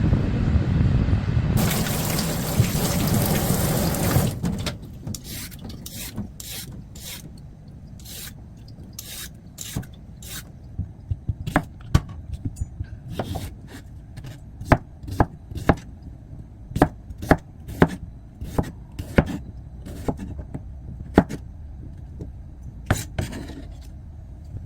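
Loud low rushing noise for about four seconds, then a long run of short, sharp knocks at uneven spacing, about one or two a second.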